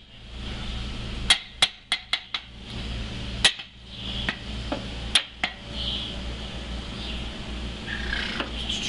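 Hand hammer striking the steel seal housing to drive alignment pins and seat the housing halves: a quick run of about six sharp metallic strikes, then one more, then a pair, over a steady low hum.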